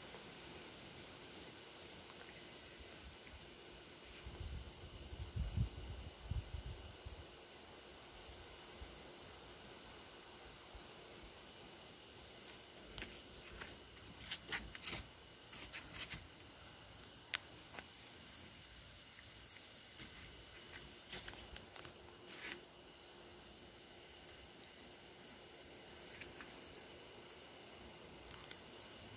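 Crickets chirping in a steady high-pitched chorus. A few soft low bumps come about five seconds in, and a scatter of faint sharp clicks comes midway.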